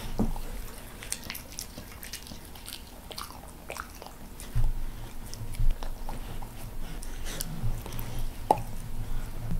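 Staffy-mix dogs biting and chewing blades of fresh grass fed by hand, with irregular crisp crunching bites.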